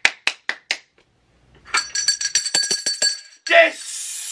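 A fast run of hand claps, about six in the first second. After a short pause comes a rapid metallic jingling lasting about a second and a half, and then a loud wordless vocal cry near the end.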